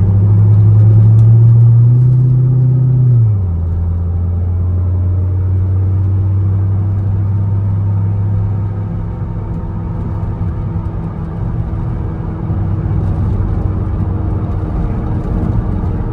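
C5 Corvette's V8 engine and aftermarket cat-back exhaust running at cruise with tyre and road noise, heard from inside the cabin. The engine note climbs slightly, then drops suddenly about three seconds in and stays steady after; no distinct wheel-bearing hum stands out.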